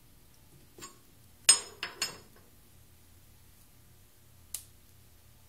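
About five sharp metal-on-metal clinks with a brief high ring, the loudest and most closely bunched about one and a half seconds in and a single one near the end. They come from handling the stopped metal lathe's chuck and a brass cartridge case.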